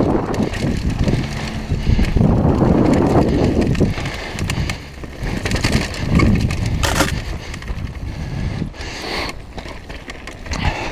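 Downhill mountain bike ridden fast over a rough dirt and gravel trail: tyres on loose ground and the bike rattling over bumps, rising and falling with the terrain, with a sharp clack about seven seconds in.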